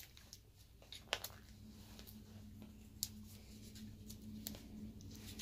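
Faint handling sounds: a few light clicks and knocks as gloved hands pick up a roll of cloth tape and a plasma cutting torch. A low steady hum starts about a second in.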